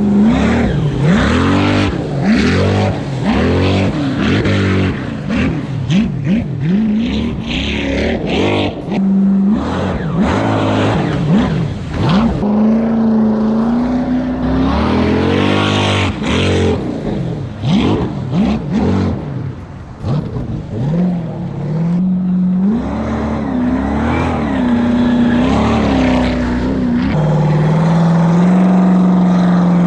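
Jet ski's 6.0 LS V8 engine under load in choppy water, its revs rising and falling over and over as the rider works the throttle and the craft passes, then holding a steady high pitch near the end.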